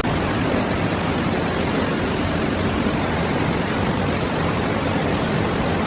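Rushing floodwater: a steady, even noise of fast-flowing water.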